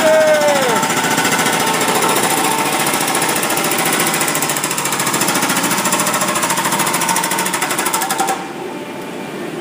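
Loud, rapid machine-like rattling, a dense fast pulsing noise, with a tone sliding down at the very start; it cuts off suddenly about eight seconds in.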